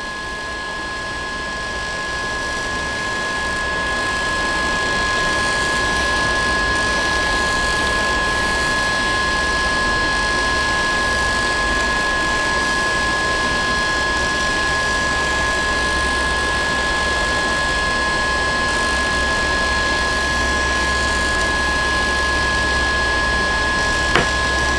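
DJI Phantom 4 Pro's brushless motors spinning without propellers: a steady electric whine over a hiss, building over the first few seconds and then holding level, with a single click near the end.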